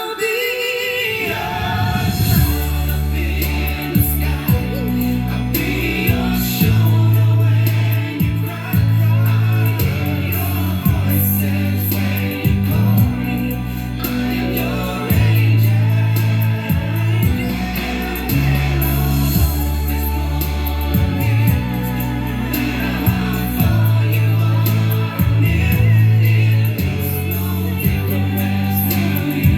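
A song with singing and a heavy, stepping bass line, played back through the Aiwa CX-ZKR900HR mini stereo system's speakers.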